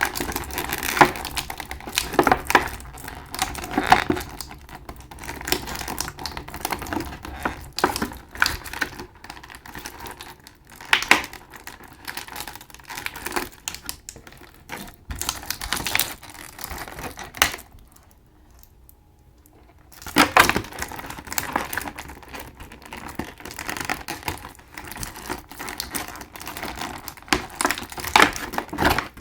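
Hard plastic action-figure packaging and parts being handled: irregular sharp plastic clicks and taps mixed with crinkling, pausing briefly about two thirds of the way through.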